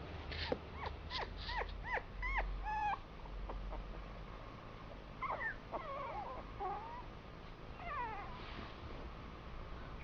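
Three-week-old Bichon Frise puppies whimpering: a quick run of short, high, arched squeaks in the first three seconds, then wavering whines about five and eight seconds in.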